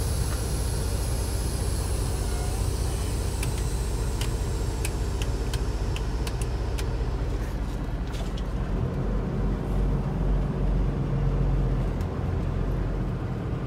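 Semi-truck diesel engine running at a steady low idle, with a few light clicks about three to seven seconds in.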